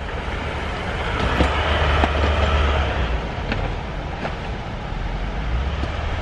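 Hard suitcases knocking and clattering as they are lifted and set onto a metal airport luggage trolley, over the steady, echoing low rumble of a parking garage.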